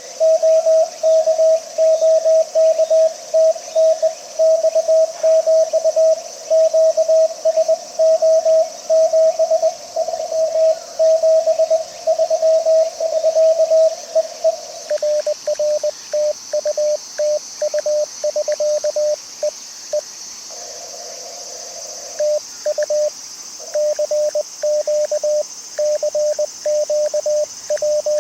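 Morse code (CW) tones from an amateur radio transceiver, keyed on and off at a brisk pace over a steady hiss. About halfway through, the tone drops slightly in pitch and the keying takes on a different rhythm, as the exchange passes to another signal.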